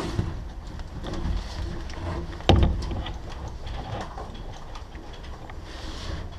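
Footsteps and rattling gear of an airsoft player moving with a rifle, full of short clicks and knocks, with one loud thump about two and a half seconds in.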